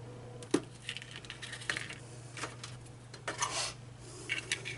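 Light clicks, taps and short scrapes of small pieces of quadcopter-arm plastic being cut with a hot knife and picked at by hand on cardboard, with the sharpest click about half a second in. A faint steady low hum runs underneath.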